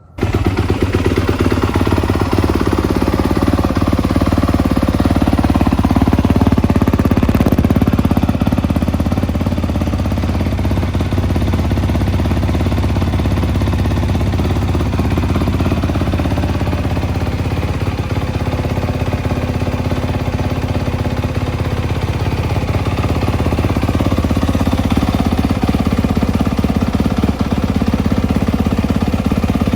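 Single-cylinder four-stroke engine of a 2021 Yamaha YZ250F dirt bike running steadily, close and loud, coming in abruptly at the start with its pitch drifting only slightly.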